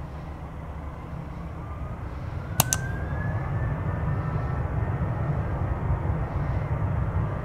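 Jet airliner engines rumbling and growing louder, with a faint rising whine. Two sharp clicks close together about two and a half seconds in.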